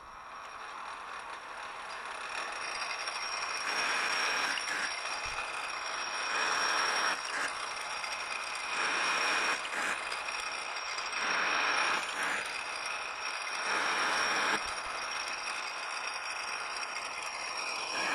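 Metal lathe running as it turns down a steel-chip-strewn workpiece toward a 1-inch diameter: the spindle comes up to speed over the first couple of seconds, then a steady high whine carries on under a cutting hiss that swells and fades about every two and a half seconds.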